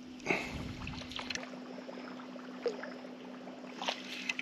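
Steady low hum of an electric bow-mount trolling motor, with a few faint short ticks over it.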